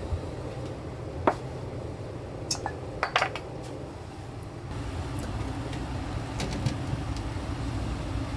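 Kitchen clatter from food preparation: a few light clinks and knocks of utensils and dishware, the loudest cluster a little after three seconds in, over a steady low hum.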